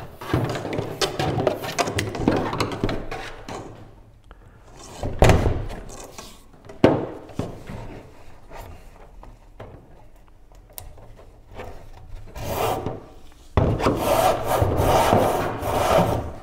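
Varnished deck rope being pulled by hand through an 8 mm hole in a kayak's wooden gunwale, rasping against the wood in a series of pulls: a run of strokes at first, two short sharp tugs, and a longer pull near the end.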